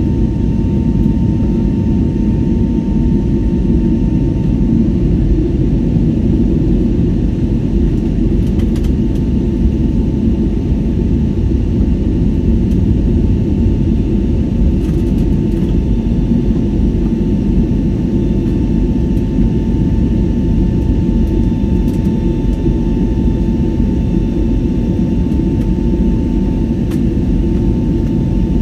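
Airliner cabin noise during the climb after takeoff: the engines and airflow make a steady low roar, with a faint steady whine above it.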